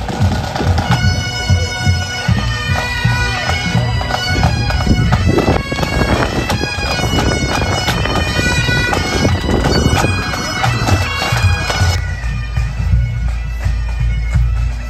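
Bagpipes playing a tune over their steady drones, as from a pipe band marching in a parade.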